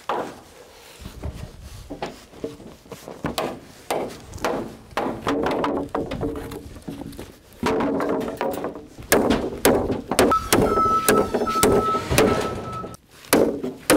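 Wooden lumber boards being set down and knocked together on a wooden layout frame: a run of irregular sharp wooden thunks and clatters, busiest in the second half.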